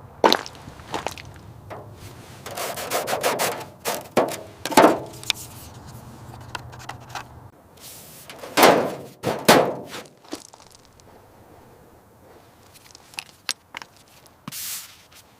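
A series of thumps, knocks and scraping sounds at irregular intervals, with a low steady hum under them that stops about halfway through.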